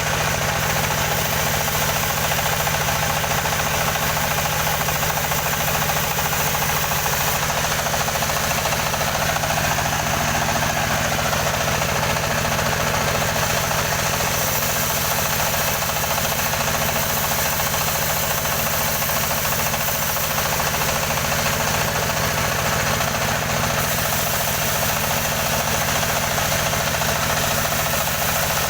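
Engine of a wood-cutting saw running at a steady speed, with no rise or fall in pitch.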